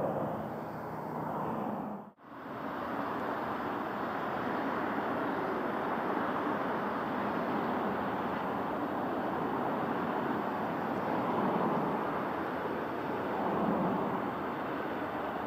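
Aircraft engines running as a plane passes, a steady rushing noise that swells a little near the end, broken by a brief gap about two seconds in.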